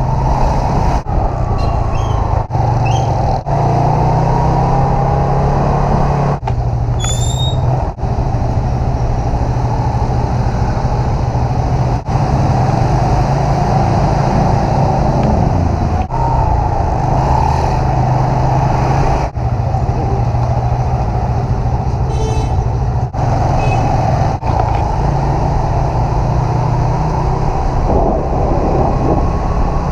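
Motor scooter riding in traffic: wind buffeting the action camera's microphone over the scooter's running engine and the traffic around it, in a steady loud rush. A short high rising squeal comes about seven seconds in.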